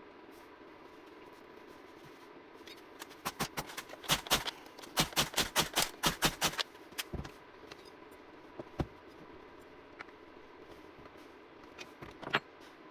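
Hard, sharp clicks from tools or parts being handled: a quick run of about a dozen clicks at roughly four a second, then a few single clicks.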